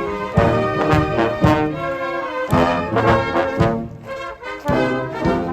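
Military marching band playing a march: brass melody over a steady drum beat, about two beats a second, with a brief lull about four seconds in.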